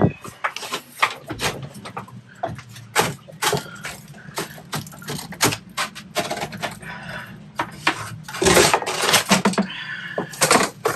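A run of irregular knocks, clicks and clatter over a steady low hum, with a denser, noisier patch of clatter about two-thirds of the way through.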